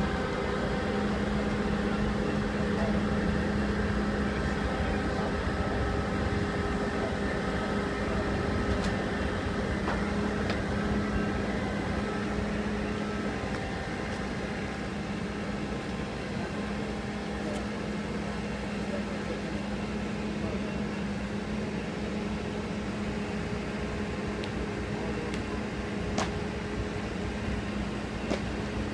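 Steady engine drone with a low hum from the power pack of a self-propelled modular transporter as it slowly rolls a heavy ship hull across onto a barge. A few faint clicks sound over it.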